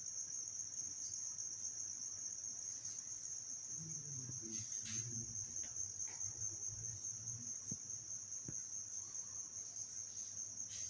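Steady, unbroken high-pitched insect trill, like crickets, with a faint low murmur about four to six seconds in.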